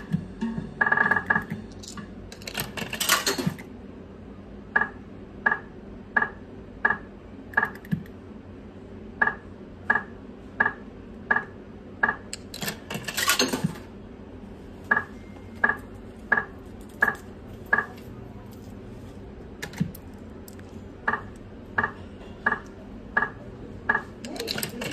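Video slot machine spinning its reels: each spin ends in a run of five short electronic beeps about two-thirds of a second apart, one as each reel stops, heard four times. Twice, and again near the end, a louder burst of clinking comes between the spins.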